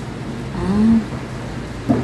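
A short murmured vocal sound, like a brief hum, about half a second in, then a single light knock near the end, typical of metal rack parts being handled.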